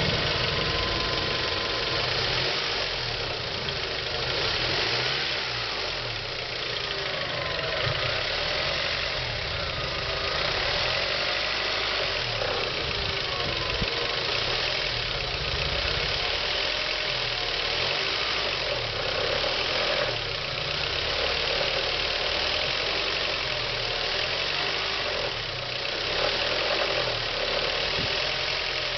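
Honda H22A4 2.2-litre DOHC VTEC four-cylinder engine running steadily, with a weird noise coming from its cylinder head.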